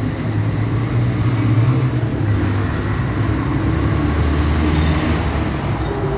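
A motor vehicle engine running with a steady low drone, dropping in pitch about two seconds in.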